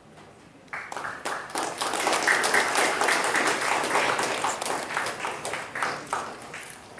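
Applause from a room full of people, starting suddenly about a second in and dying away near the end.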